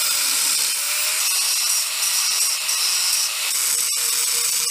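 Angle grinder grinding the steel jigging tabs of an axle truss: a steady, high-pitched whine over a dense hiss of the disc on metal, with one brief break near the end.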